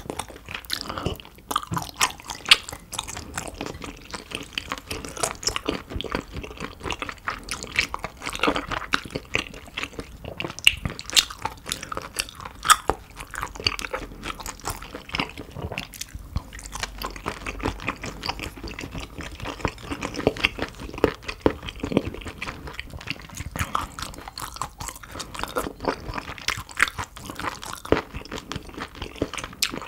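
A person chewing and biting food close to the microphone, with many sharp, irregular mouth clicks.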